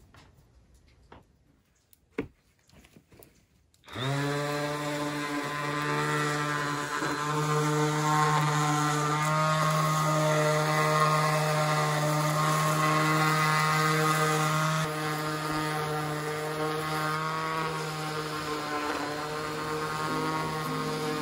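A random orbital sander starts about four seconds in and runs steadily against a charred wooden board, a steady motor hum with a rubbing sound. Before it, a few faint clicks.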